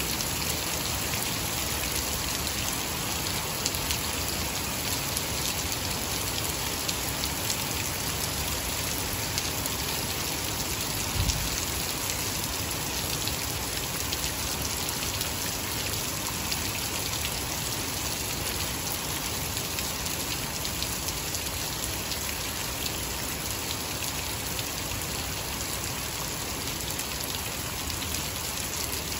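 Heavy rain falling hard and steadily onto a flooded lawn and puddles: a dense, even hiss of drops splashing into standing water. There is one brief low thump about eleven seconds in.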